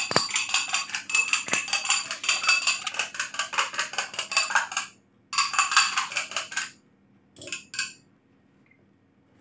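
Chopsticks beating eggs in a glass bowl: a rapid, even clicking of the sticks against the glass. It pauses briefly about five seconds in, starts again, and stops with a couple of short bursts a few seconds before the end.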